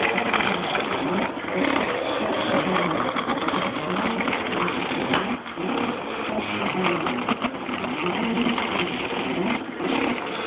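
MakerBot 3D printer at work, its stepper motors whirring and buzzing in short, shifting tones as the extruder head and build platform move while laying down plastic.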